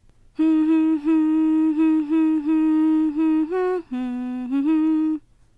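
A woman's voice humming a short tune, mostly one note repeated in short steps, with a brief higher note and then a lower stretch near the end.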